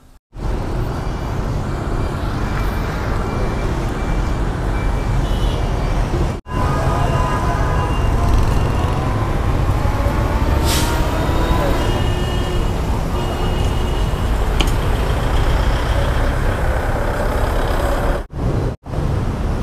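Street traffic passing close by, motorbikes and cars, as a steady noise heavy in the low end, with one engine rising in pitch about ten seconds in. The sound cuts out briefly three times.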